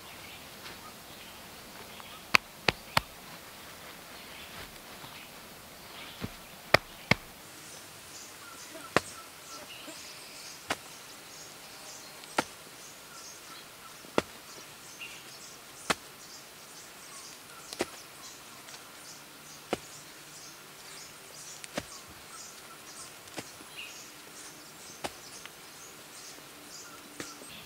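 A series of sharp knocks, like a tool striking: a few irregular ones at first, then a steady beat of about one every two seconds. Faint high chirping runs behind them through most of the stretch.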